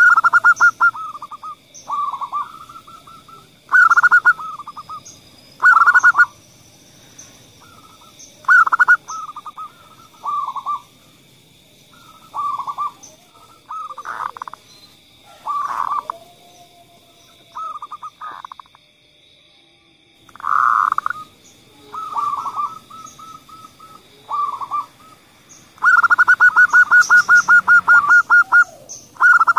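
Zebra doves (perkutut) cooing: short rolling phrases of fast pulsed notes every second or two, with a longer, unbroken run of rapid notes lasting about three seconds near the end. The calls are a female perkutut's voice and a kerot perkutut's call, used as a lure to set male doves calling.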